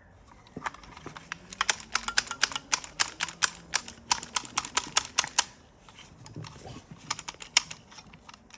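Rapid, irregular sharp clicking of the small hard parts of a seatbelt retractor being handled and worked, several clicks a second, pausing briefly about six seconds in before starting again.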